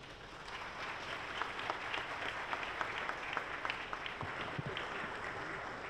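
Audience applauding: many hands clapping, swelling at the start and thinning out toward the end. A couple of low thumps are heard about four and a half seconds in.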